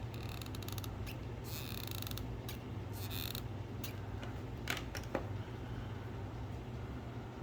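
Hot glue gun trigger being squeezed, its feed mechanism creaking and clicking in three short spells, followed by two sharper clicks about five seconds in, over a steady low hum.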